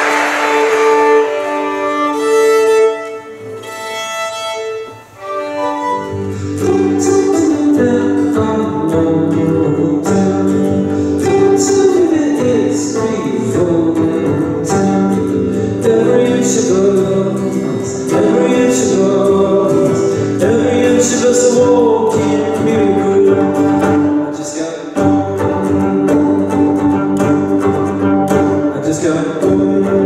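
Live violin and guitar music. Applause dies away at the start and a few seconds of sparse notes follow. About six seconds in, the guitar and low notes come in under the bowed violin, with a brief dip in the playing about five seconds before the end.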